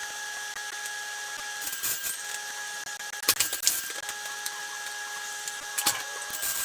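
A small electric tool or machine running with a steady whine at a few fixed pitches over a high hiss. The whine breaks off briefly a couple of times, and there are a few sharp clicks.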